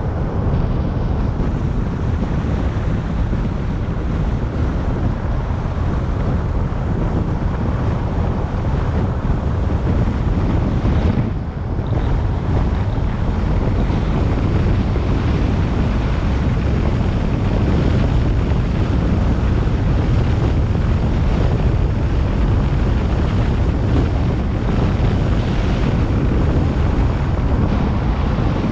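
Wind rushing over the microphone of a moving car, blended with the car's road noise, a loud steady rumble with a brief dip about eleven seconds in.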